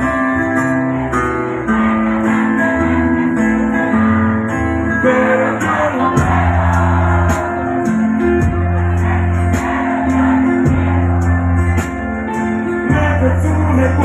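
Live amplified band music with guitar and a singer's voice. A heavy bass line comes in about five seconds in.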